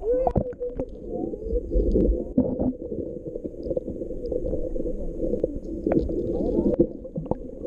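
Muffled sound of water heard by a microphone held underwater in shallow water: a dense low churning rumble with gurgles, broken by scattered sharp clicks and knocks.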